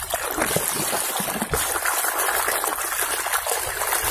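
A steady stream of water pouring into a bucket of soapy water, with small splashes as a plastic toy vehicle is rubbed clean in it.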